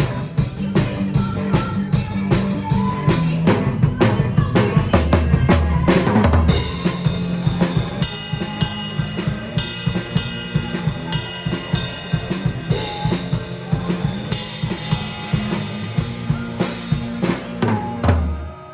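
Drum kit played hard and fast with a rock pit band, kick, snare and cymbal hits up front over sustained band notes; the music cuts off sharply near the end.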